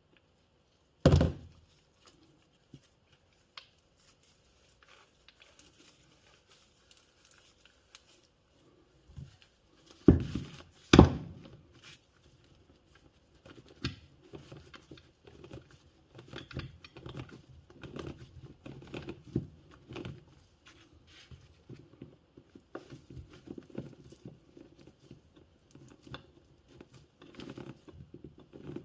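Hands working on the parts of a disassembled e-bike mid-drive motor: a sharp knock about a second in and two more about ten seconds in as parts are set down, then many faint irregular clicks and rubbing sounds as a gear wheel is handled and greased.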